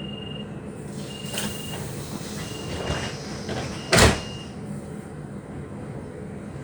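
Door-closing warning of a DB class 472 S-Bahn train: a high beep repeating about every second and a half, followed by the sliding doors shutting with a loud thud about four seconds in. A steady low hum from the standing train runs underneath.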